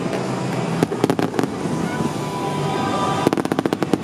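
Fireworks going off: a few sharp bangs about a second in, then a rapid string of crackling reports near the end, over a steady background din.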